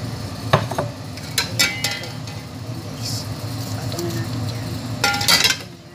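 Metal utensil clinking and scraping against an aluminium cooking pot as fried potato and eggplant slices are laid in: a few sharp ringing clinks, the busiest near the end, over a steady low hum.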